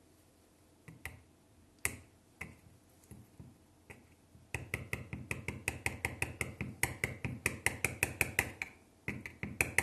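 Wooden toothpick being pushed through a raw black radish, making crisp clicks. At first there are a few scattered clicks. From about four and a half seconds in comes a fast, even run of sharp clicks, about five a second, which pauses briefly near the end and then starts again.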